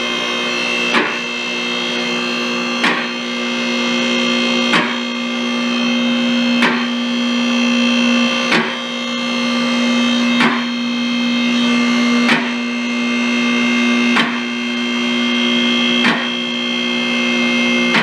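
Electric motor of a car lift running steadily with a strong hum while raising the car, with a sharp click about every two seconds, ten in all.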